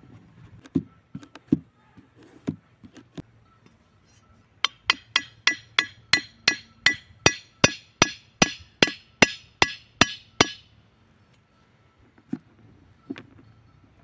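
A machete blade striking the top of a thin wooden stake, driving it into the ground: a steady run of sharp, clinking blows, roughly three a second, lasting about six seconds from about five seconds in. A few scattered knocks come before it.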